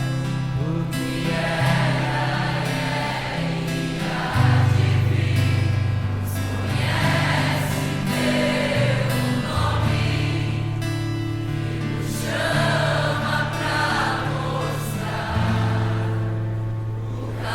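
Christian worship music: a choir singing without clear words over held bass notes that change every second or two.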